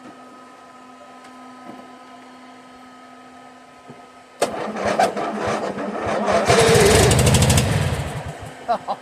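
Faint steady hum, then about four and a half seconds in the starter of a 1997 MTD Yard Machines riding mower suddenly cranks the cold engine with rapid regular pulses for about four seconds before dying away: a cold-start attempt at about 25 °F.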